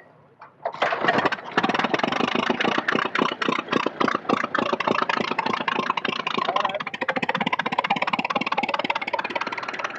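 Vintage car engine starting about a second in after its fuel has been turned on, then running with a rapid, uneven beat that settles to a steadier idle near the end.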